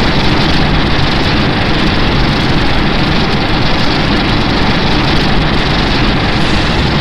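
MechaGodzilla sound effect: a loud, steady rumbling roar with a deep low rumble underneath, holding at one level throughout.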